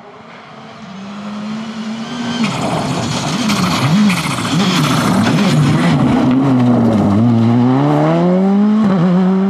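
Škoda Fabia R5 rally car's turbocharged four-cylinder engine on a gravel stage, growing louder over the first few seconds. Its note rises and falls quickly several times, then drops low about seven seconds in and climbs steadily under acceleration, over the hiss of gravel under the tyres.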